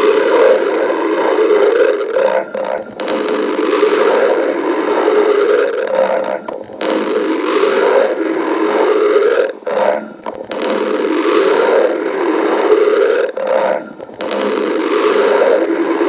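Loud stomach growling: long, noisy rumbling gurgles in stretches of three to four seconds, broken by short pauses.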